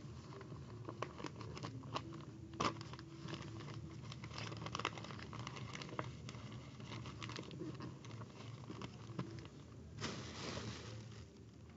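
Paper rustling and crinkling as a sheet is folded and pressed flat by hand on a tabletop, with scattered small taps and clicks. A sharper tap comes about two and a half seconds in, and a short swishing rush near the end.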